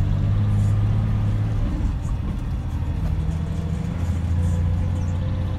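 Scania K124 six-cylinder diesel engine of an Irizar PB coach, heard from inside the passenger cabin as a steady low drone. The note eases about two seconds in and builds again from about three seconds.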